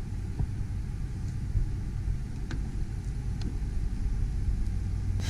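A low steady rumble with a few faint light clicks as the carbon fiber spoiler's stainless studs are set against the trunk lid and lined up with the drilled holes.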